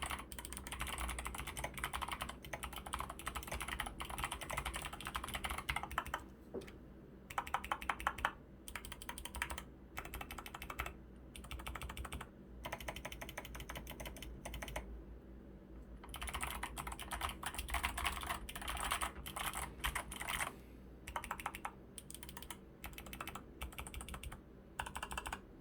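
Typing on a DROP CTRL High-Profile mechanical keyboard with lubed Kailh Box Pink clicky switches under SA keycaps: fast runs of crisp clicks, broken by short pauses.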